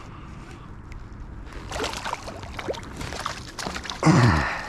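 Water splashing and sloshing beside a kayak, in short irregular strokes through the middle, with a short loud burst of voice near the end.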